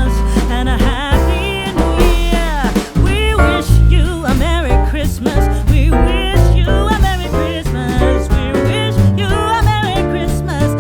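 Background music: a full mix with a heavy bass line under a gliding, wavering melody.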